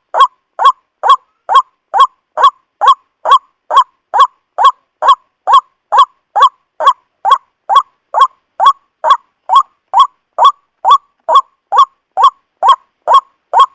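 White-breasted waterhen (ruwak-ruwak) call played as a bird-trapping lure: a loud, harsh note repeated at a perfectly even pace, a little over two calls a second, with clean gaps between them.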